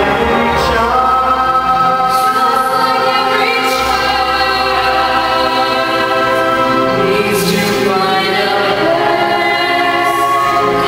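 A woman and a man singing a slow duet through microphones, with long held notes.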